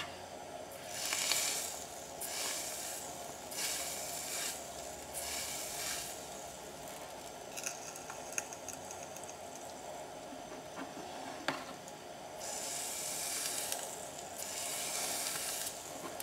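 Electrolyte-soaked electropolishing brush on a steel bar, fizzing and sizzling in spells of a second or so as the current flows through the wet contact and cleans the metal. Four quick spells come early, then a pause with a few small clicks, then two longer spells near the end.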